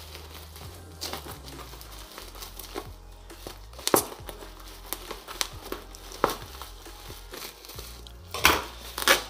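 Scissors snipping through plastic packing tape and bubble wrap, with the plastic crinkling in the hands; sharp snips come every second or two, and the crinkling is loudest near the end as the wrap is pulled open.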